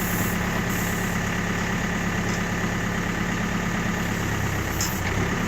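Backhoe engine running steadily at idle, a constant low hum.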